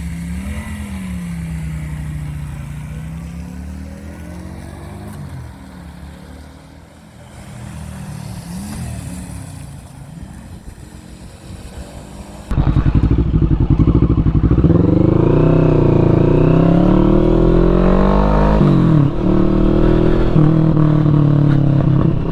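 Motorcycle engines heard at a distance, their pitch rising and falling as they are ridden. About halfway through, the sound jumps suddenly to a close, much louder motorcycle engine running and revving.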